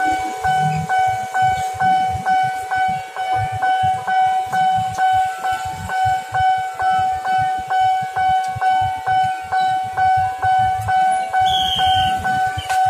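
Railway level-crossing warning bell ringing steadily: an electronic ding repeating about three times a second over a held tone.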